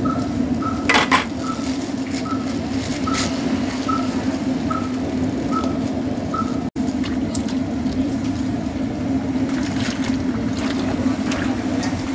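A metal ladle clinks a few times against a large aluminium pot of bakso broth as broth is ladled into a plastic bag, over a steady low drone. A short high chirp repeats about twice a second through the first half.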